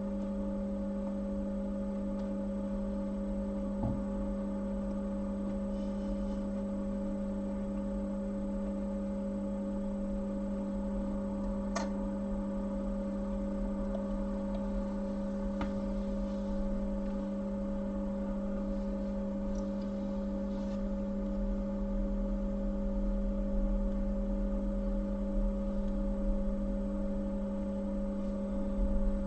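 Steady electrical hum, with a few faint clicks about 4, 12 and 16 seconds in.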